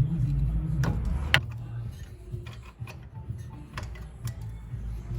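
Irregular metallic clicks and clinks of hand tools and bolts as a car's front brake caliper is bolted back onto the hub.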